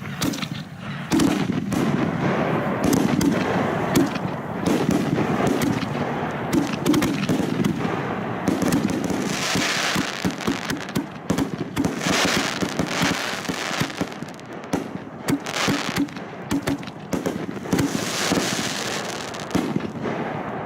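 A relit firework that had failed to fire going off fast: a dense, continuous run of rapid crackling pops with louder hissing spurts now and then, lasting about twenty seconds.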